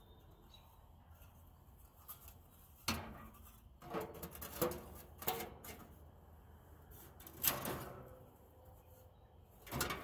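Rusty metal heat plates being handled and set down over a gas grill's burners: a string of clanks and scrapes of metal on metal, the loudest about seven and a half seconds in.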